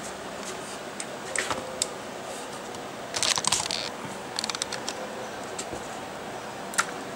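Hands handling a foam model wing and the clutter beside it: scattered light clicks, with a short crunchy rustle about three seconds in and a few more clicks after.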